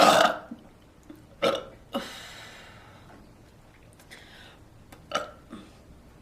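A person burping: one loud burp right at the start, then several shorter, sharper ones about a second and a half in, at two seconds and around five seconds.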